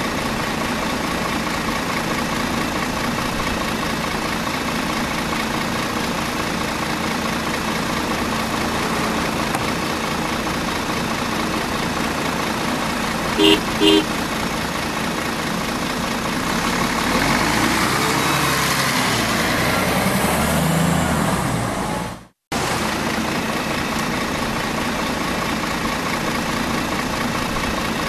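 A large vehicle's engine running steadily, with two short horn beeps about halfway through and a louder stretch with rising and falling pitch later on. The sound cuts out for a moment near the end, then the steady engine resumes.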